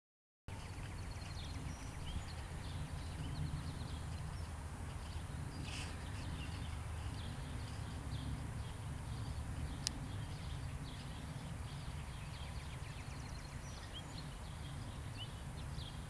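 Rural outdoor ambience starting half a second in: scattered small birds chirping over a steady low rumble, with one sharp click about ten seconds in.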